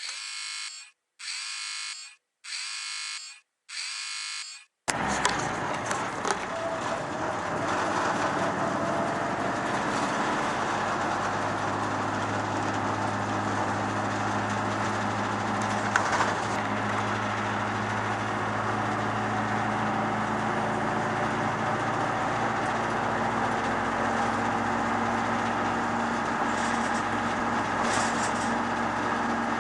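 Four short electronic beeps, about a second apart, then a truck's diesel engine running steadily.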